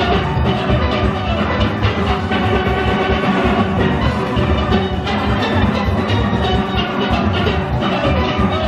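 A full steel orchestra playing a fast soca arrangement: many steelpans across their ranges ringing together over percussion keeping a steady driving beat.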